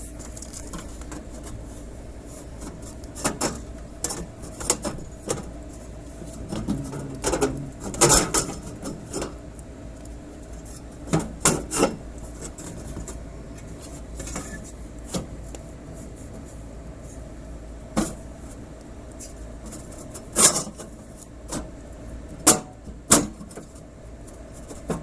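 Scattered clicks, knocks and light metallic rattles of hands handling tools and hardware at a workbench, a few in quick pairs, over a steady low hum.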